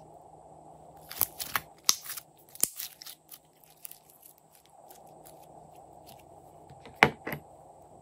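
Hands working glossy glitter slime and handling plastic slime containers. A run of sharp clicks and pops comes about a second in, and two loud clicks come near the end.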